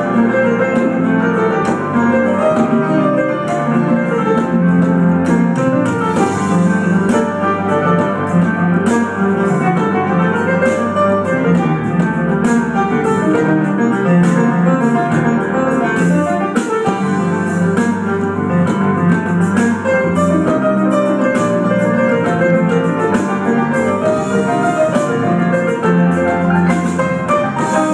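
Live keyboard playing on a stacked two-tier synthesizer rig with a Korg on top: a continuous, busy stream of notes and chords.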